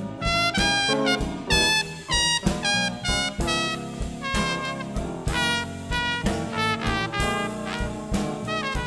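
Small swing jazz band playing an upbeat tune, with horns (trombone and saxophone) carrying the melody over bass, piano and drums.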